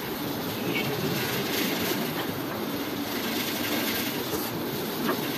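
Steady rushing background noise spread evenly across the range, with no clear individual events.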